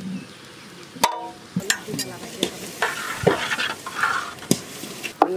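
A metal spoon stirring beaten raw eggs in a large aluminium bowl, clicking against the metal about six times, with the sizzle of food frying in a wok in the background.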